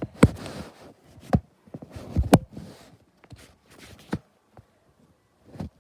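Five or so sharp knocks and thuds at uneven intervals, with rustling between them: handling noise and steps close to the microphone.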